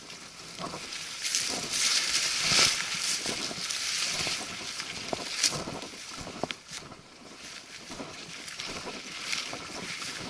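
Brush rustling and swishing as a hiker pushes through dense young spruce and shrubs, with scattered twig snaps and footfalls; loudest a couple of seconds in, then softer.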